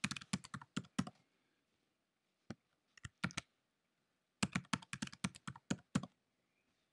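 Keystrokes on a computer keyboard: a quick run of taps in the first second, a few lone taps around two and three seconds in, then another quick run from about four and a half to six seconds.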